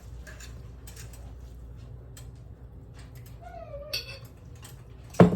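A cat meows once, a short call falling in pitch, about three and a half seconds in. Near the end there is a single loud thump.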